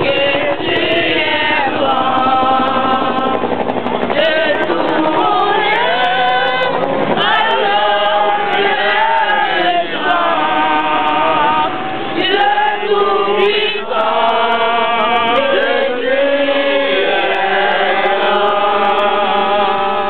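A group of voices, mostly women, singing a song together unaccompanied.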